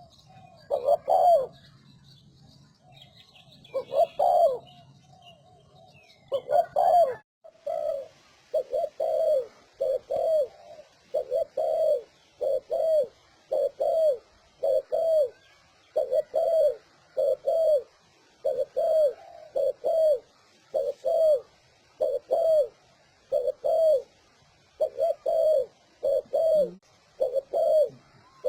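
Spotted dove cooing in the fast style used to lure wild doves. There are a few spaced coos, then after an abrupt break a steady, rapid run of short falling coos, more than one a second. A faint high twittering repeats behind it.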